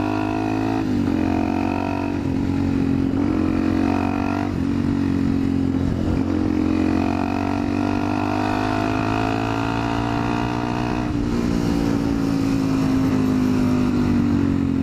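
Motorcycle engine running under way, a steady hum with wind noise over it; the engine pitch dips and picks up again three times, about a second in, around four and a half seconds and near eleven seconds.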